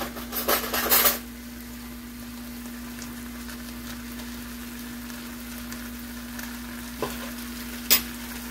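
Rice pilaf simmering in a skillet: a steady sizzling hiss over a constant low hum. A metal spoon scrapes through the rice in the first second, and there are two short clinks near the end.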